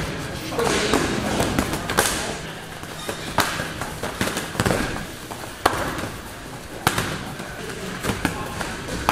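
Sparring strikes landing: punches from boxing gloves and kicks with shin guards smacking against gloves, guards and bodies. The sharp hits come irregularly, about seven of them, roughly a second or so apart.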